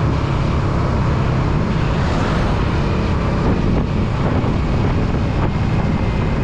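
Motorcycle cruising at steady speed, about 60 km/h, its engine giving a constant low hum under heavy wind rush on the microphone.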